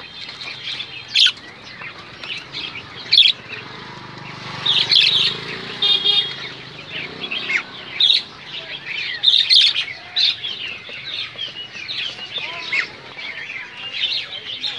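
Many caged songbirds chirping and calling over one another, with sharper, louder calls standing out every second or two.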